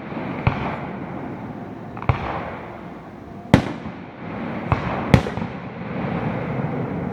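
Aerial fireworks shells bursting: about five sharp bangs, the loudest about halfway through, each trailed by a rolling rumble.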